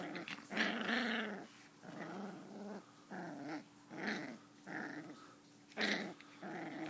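Five-week-old poodle–sheepdog mix puppy growling in play as it wrestles and mouths a hand: a string of about seven short, small growls with brief pauses between them.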